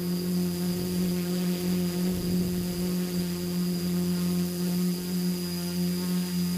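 Tricopter's electric motors and propellers running in flight, a steady buzzing hum close to the onboard camera, with a thin high whine above it.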